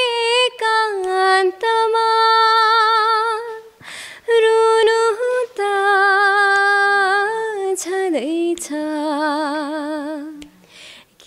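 A woman singing a Nepali song unaccompanied, holding long notes with a wide vibrato and taking short breaks between phrases. She trails off near the end.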